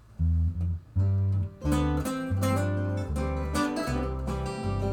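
Acoustic guitar starting a country-style song: a few low bass notes picked, then full strummed chords from about a second and a half in.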